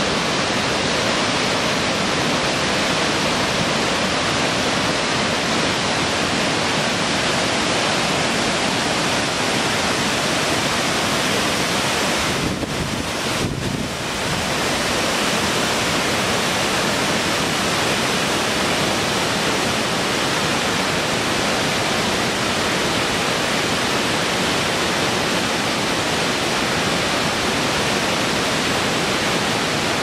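Steady rushing of white water over rocks from a river cascade and a waterfall, dipping briefly in level about halfway through.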